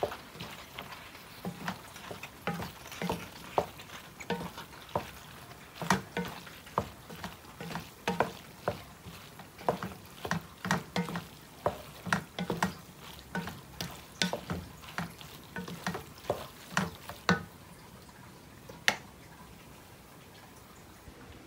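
A wooden spatula stirring and folding cooked elbow macaroni into tomato sauce in a large nonstick pot, with irregular scrapes and knocks against the pot, roughly two a second. The stirring stops most of the way through, with one last knock a little later.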